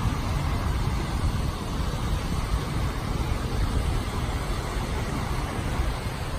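Cars driving through a flooded street, their tyres pushing through deep water in a steady, even rush of noise.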